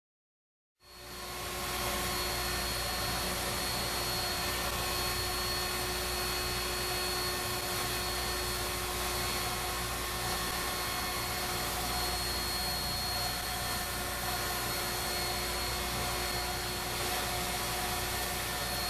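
Table-mounted router running steadily, its roundover bit rounding over the edge of a tempered hardboard fan blade. The steady motor whine starts suddenly about a second in.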